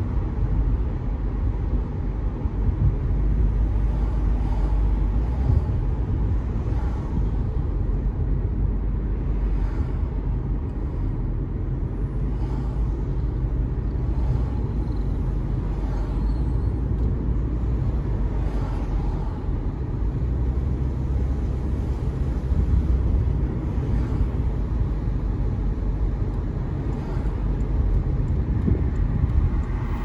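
A car driving along a road: a steady low rumble of road and tyre noise.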